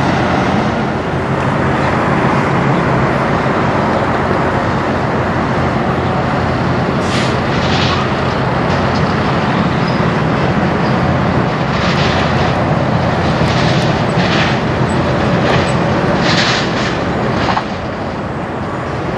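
Heavy diesel semi-truck engines running as tractor-trailer car haulers drive past, a steady low drone. Several short high-pitched hisses come in over it during the middle and later part.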